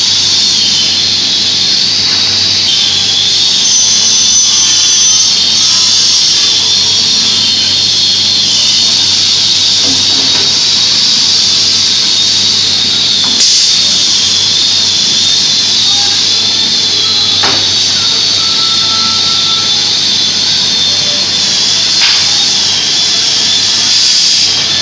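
Sliding table panel saw running with a steady high whine while a wooden board is pushed through it on the sliding table, with a few brief clicks along the way.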